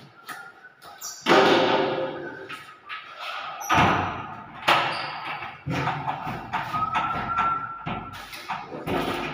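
An interior door shutting with a loud thump about a second in, followed by several more knocks and thuds, echoing in a bare room.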